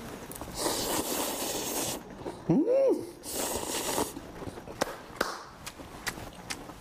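A man slurping ramen noodles and then broth in long, noisy sucking draws, with a short rising-and-falling hum of appreciation between them. A few sharp clicks of utensils follow near the end.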